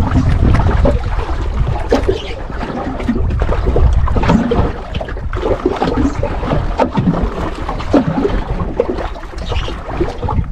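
Water lapping and gurgling against a small boat's hull, with wind rumbling on the microphone.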